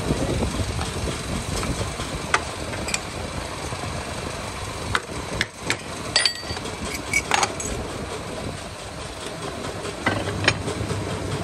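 Steady hum of workshop machinery running, with scattered sharp knocks and clanks as a wooden brush back is tamped into a hinged steel mould with a wooden stick and the mould is shut.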